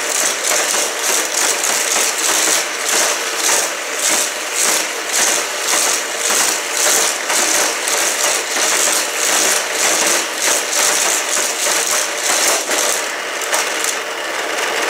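Motorized Hot Wheels Criss Cross Crash track set running: the booster's powered wheel whirs steadily while die-cast cars rattle and clatter around the plastic track loops, the sound pulsing a couple of times a second as cars are shot through the boosters.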